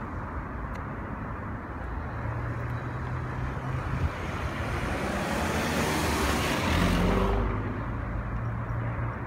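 Car engine running with tyre and road noise as the car moves off slowly. A louder swell of engine and road noise builds about five seconds in, peaks around seven seconds and then falls back.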